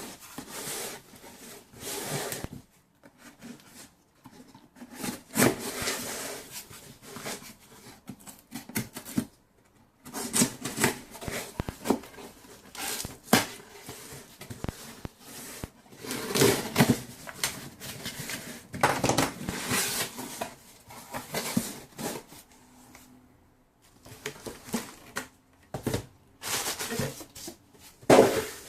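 Close handling noise: hands rubbing, rustling and knocking small objects, in irregular bursts with short pauses.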